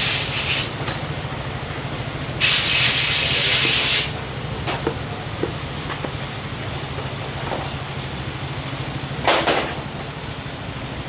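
Three blasts of hissing spray: one at the start, a longer one of about a second and a half a couple of seconds in, and a short one near the end, over a steady low machine hum, with a few light clicks in between.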